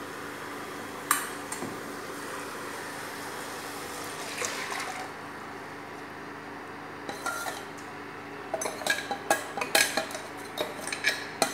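Metal spoon scraping and knocking against a stainless-steel bowl as thick dal batter is emptied into a cooking pan. There is a single clink about a second in and a quick run of clinks and taps in the last few seconds.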